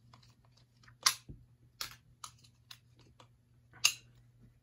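Hard plastic action-figure parts clicking and snapping as a Zord toy is handled and transformed. There are several sharp clicks, the loudest about a second in and near the end, over a faint steady hum.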